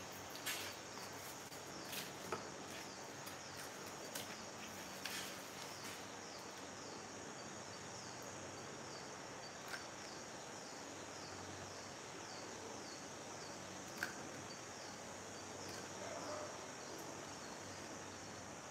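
Faint steady hiss with a high chirp repeating about twice a second, and a few light taps and clicks from cardboard and a hot glue gun being handled.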